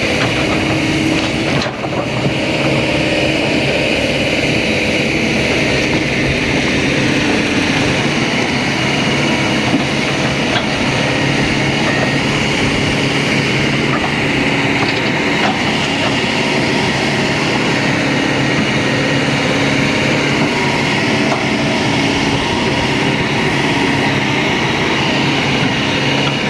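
Kobelco 220 excavator's diesel engine running steadily as the machine works.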